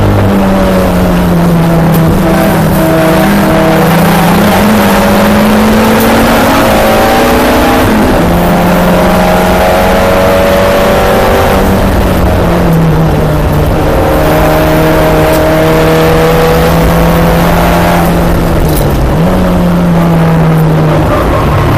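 Onboard sound of a Volkswagen GLI race car's turbocharged four-cylinder engine working hard through corners, loud inside the cabin. Its pitch climbs and dips with throttle and gear changes, dropping about eight and twelve seconds in and jumping up briefly near the end.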